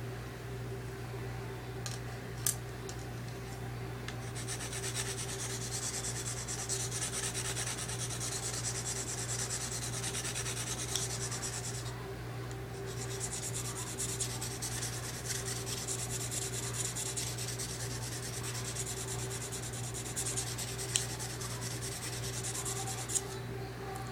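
Steel blade of a Smith & Wesson Black Ops recurve knife stroked over and over on an oiled sharpening stone: a steady scraping hiss that starts about four seconds in, pauses briefly around the middle, then carries on. A few light clicks and a steady low hum lie underneath.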